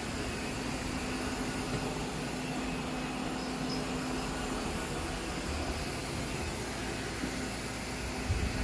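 Ecovacs DEEBOT 500 robot vacuum running: a steady whir from its suction motor, with a constant low hum and a short low thud near the end.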